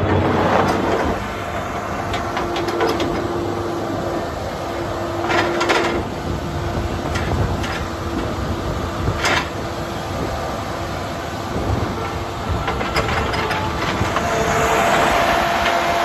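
A 1999 New Holland LS170 diesel skid steer running and driving on gravel, its engine giving a steady drone with rattling from the machine. Several sharp metal clanks come about a third of the way in and again a little later, and a higher steady tone joins near the end.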